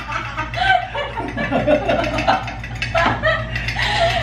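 A woman and a man laughing together, chuckling and giggling on and off, over a steady low hum.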